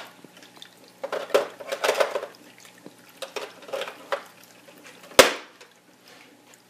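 Hard plastic vacuum attachments clattering and knocking against each other as they are handled, in a few short bursts, with one sharp knock about five seconds in.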